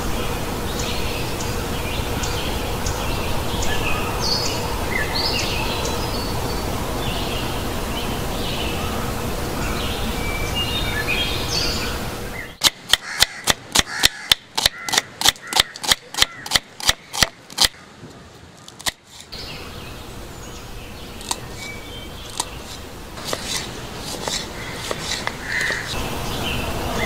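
A knife slicing onion on a wooden cutting board, about three quick chops a second for some six seconds midway. Before and after, birds chirp over steady outdoor background noise.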